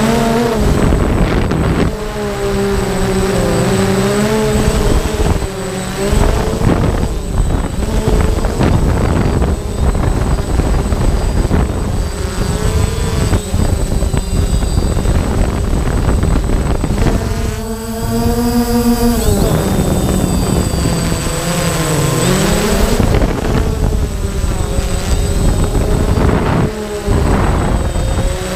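Quadcopter's motors and propellers whining close to the onboard camera's microphone, the pitch wandering up and down as the throttle changes, with wind buffeting the microphone.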